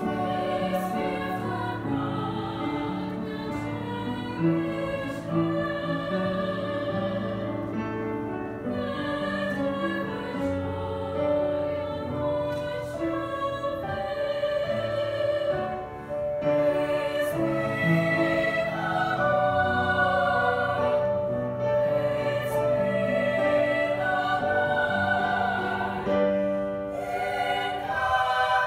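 Women's choir singing a slow piece in sustained, overlapping parts, with low held notes beneath the voices. It grows louder a little past halfway.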